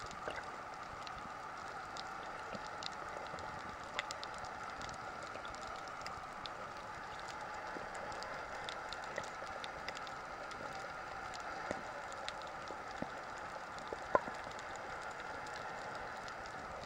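Underwater sound of a coral reef, heard through a camera's waterproof housing: a steady hiss with irregular sharp clicks and crackles scattered throughout, one louder click about fourteen seconds in.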